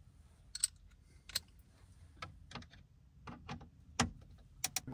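A handful of light, sharp clicks and taps, spaced irregularly: a screwdriver working the screws out of a car's plastic dashboard trim. The loudest clicks come about a second and a half in and about four seconds in.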